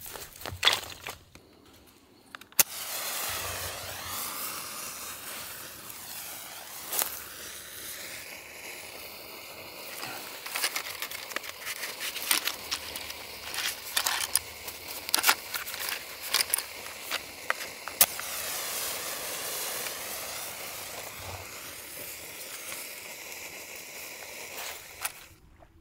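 Food sizzling in a hot pan: a steady frying hiss that starts suddenly a few seconds in, with scattered pops and crackles, and cuts off abruptly near the end. A few sharp clicks come first.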